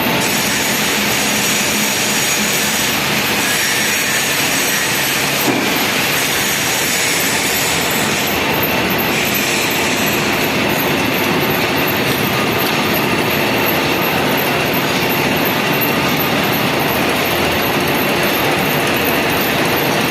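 Heavy workshop machinery running with a loud, steady mechanical noise, with a faint click about five and a half seconds in.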